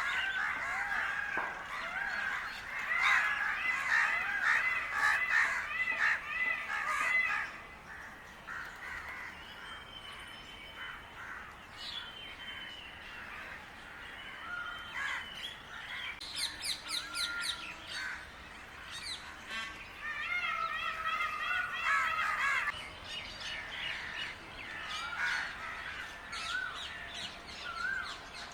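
A flock of crows cawing, many harsh calls overlapping at once. The calls are busiest for the first seven seconds or so, then come sparser, with a few more bouts of calling later on.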